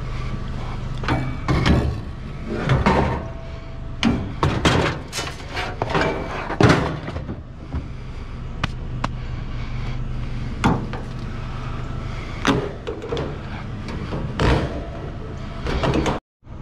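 Rusty scrap steel clanking and knocking as pieces are handled and tossed into a truck, many separate hits scattered throughout, over the low steady hum of an idling vehicle engine.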